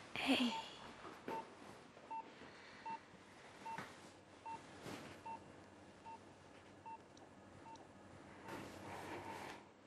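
Intensive-care patient monitor beeping with the heartbeat: a short, steady mid-pitched beep repeating evenly, a little under once a second. A brief louder sound comes right at the start.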